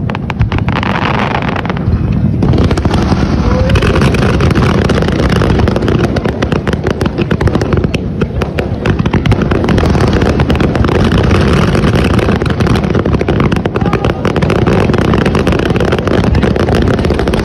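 Fireworks display going off in rapid succession: a dense run of bangs and crackles over a deep rumble. It thins briefly about eight seconds in, then builds again.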